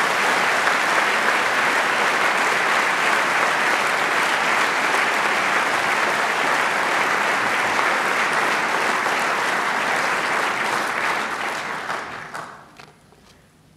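A large seated audience applauding: steady, dense clapping that dies away about twelve seconds in.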